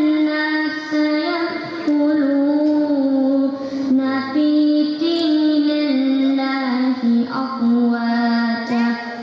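A boy's voice chanting Quran recitation (tilawat) in a long, melodic line of held, ornamented notes that step gradually lower, with a few short pauses for breath.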